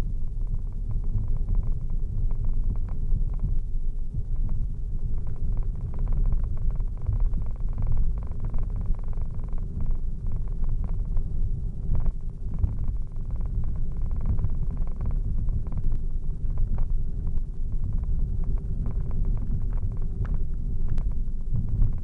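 Car driving: a steady low rumble of road and engine noise with a faint constant hum, dotted with scattered light ticks.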